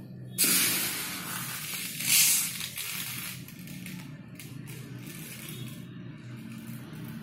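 A hand scooping small black cumin (nigella) seeds off a plate: a hissing rustle of seeds shifting and trickling, which starts suddenly about half a second in, is loudest around two seconds, then thins to a few faint rustles.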